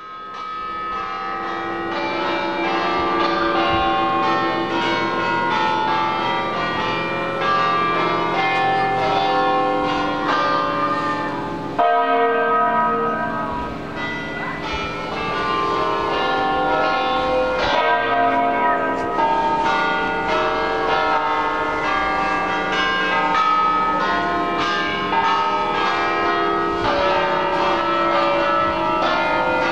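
Church bells ringing a continuous peal, many bells struck in quick succession at different pitches, with a sudden louder change about twelve seconds in.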